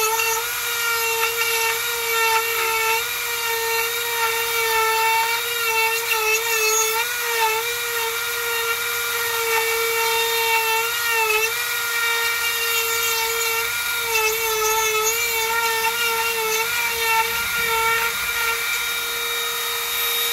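Dremel rotary tool on its flex-shaft attachment running at high speed while its bit carves into the sculpture: a steady high whine that dips briefly in pitch several times.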